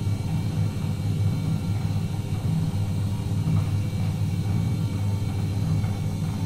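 Semi-automatic cotton wick making machine running, a steady low hum from its drive as the water-wetted belt rolls cotton into wicks.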